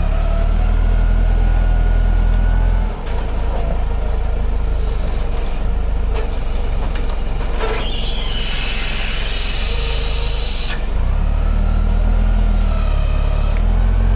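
A heavy vehicle's engine running steadily, with a loud hiss lasting about three seconds from about eight seconds in.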